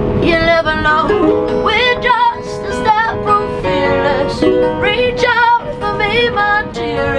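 A woman singing in phrases with wavering held notes, accompanied by a ukulele and an acoustic guitar.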